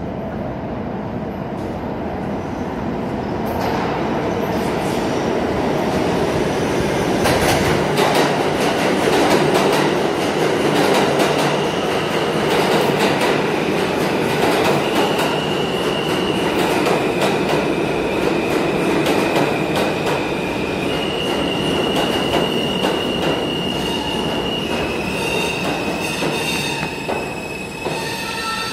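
New York City subway train running, heard from inside the car: a steady rumble of wheels on rail with clicks over the rail joints. From about twelve seconds in, a high, steady wheel squeal shifts up and down in pitch several times.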